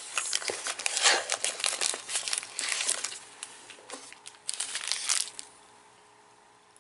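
Plastic snack packaging crinkling in a run of irregular bursts as a cardboard snack box is rummaged and a plastic-wrapped waffle cookie is taken out. The crinkling stops about five seconds in.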